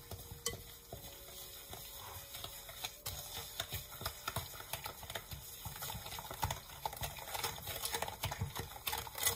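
Wooden spoon stirring and mashing raspberries and sugar in a glass bowl: a busy run of wet scrapes and taps against the glass, growing louder about three seconds in.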